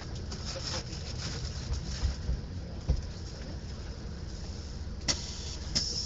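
Low, steady rumble of a vehicle driving, heard from inside the cabin: engine and road noise, with a couple of thumps about two and three seconds in and brief sharp noises near the end.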